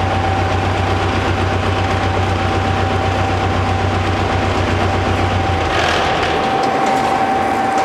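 Double-shaft shredder, driven by two 30 kW electric motors, running under load as it shreds a cardboard bale: a steady mechanical din with a constant whine on top. A low rumble underneath drops away about three-quarters through, with a brief rush of higher-pitched noise at that point.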